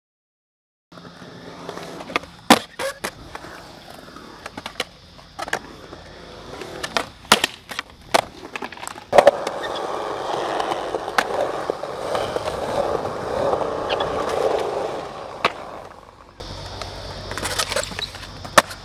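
Skateboard on a concrete skatepark: sharp clacks of the board popping and landing, then a long stretch of wheels rolling and carving through the bowl. After a sudden change, more sharp clacks come near the end as the board hits a concrete ledge.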